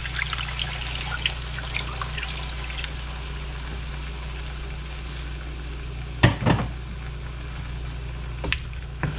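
Adobo marinade sizzling and bubbling in a hot wok of chicken and vegetables, just after being poured in; the crackle thins out after the first few seconds. A sharp knock comes about six seconds in, and two lighter ones near the end.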